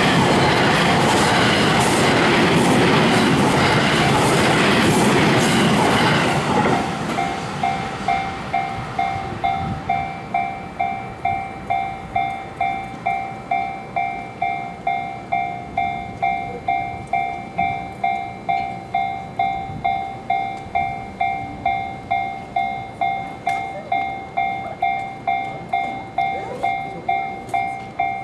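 A train rushing past at close range for the first six seconds or so, then a Japanese railroad crossing's electronic warning bell ringing on its own, a steady ding about twice a second.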